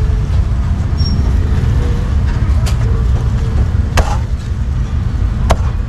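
Meat cleaver chopping through roast meat onto a wooden chopping block: a few separate chops, the loudest about four seconds in, over a steady low rumble of street traffic.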